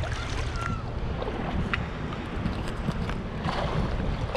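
Wind rumbling on the microphone over shallow sea water lapping and splashing, with scattered small splashes.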